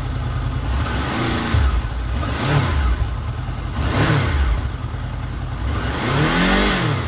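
Honda VFR800 VTEC V4 engine, warmed up, idling and being blipped by the throttle four times: three short rises and falls in revs, then a longer one near the end.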